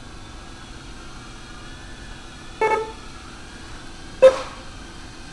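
Two short electronic beeps about a second and a half apart, the second one louder, over a steady low background hiss.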